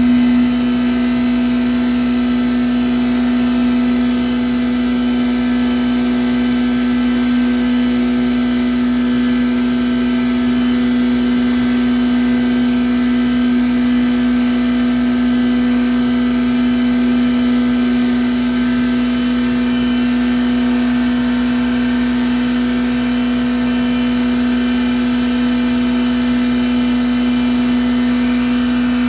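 Groundnut husk grinder running at full speed with a loud, steady whine of one unchanging pitch, as husks are poured into its hopper and ground.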